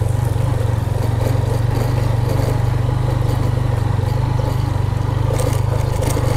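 Motorcycle engine running at a steady cruise, heard from the bike being ridden, with a few faint clicks near the end.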